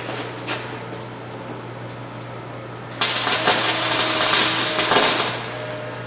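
MIG welder arc crackling for about two seconds, starting about three seconds in, as a bead is run on a steel exhaust joint at a Flowmaster muffler, over a steady low electrical hum.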